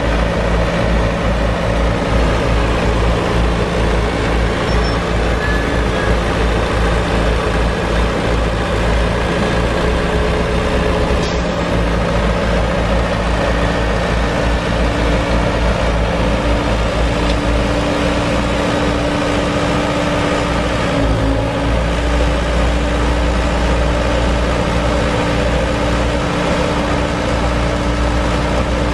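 Four-cylinder turbo diesel engine running steadily, with a steady higher hum joining about halfway through.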